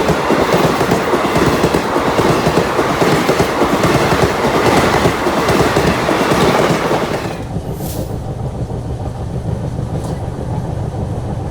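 Passenger express train passing at speed. About seven seconds in, the noise drops sharply to a lower, steady rumble.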